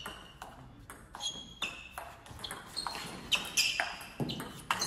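Table tennis rally: the ball clicking off rackets and table in quick alternation, each hit with a short ringing ping, the hits coming closer together in the second half.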